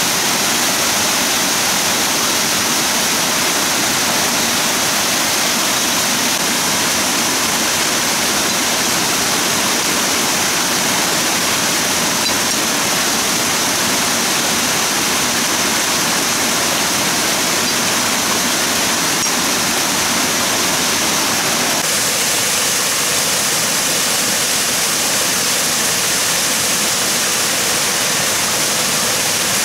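Steady rush of flowing water, like a stream or waterfall, loud and unbroken, its tone shifting slightly about two-thirds of the way through.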